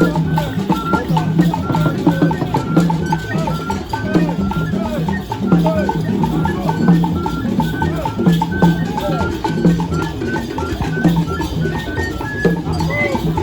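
Percussion-led music with drums and other struck percussion keeping a steady, repeating beat, over a busy background of voices.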